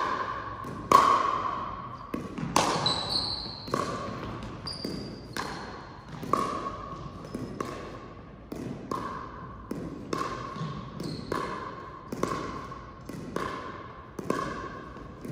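Pickleball doubles rally: a steady run of sharp paddle-on-ball hits, roughly one or two a second, each ringing and echoing in a gym, with a few brief shoe squeaks on the floor.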